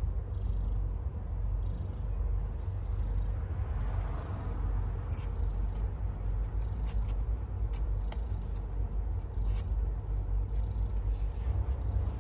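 Tabby mother cat purring steadily while nursing her newborn kittens: a continuous low rumble. A few faint clicks come in the second half.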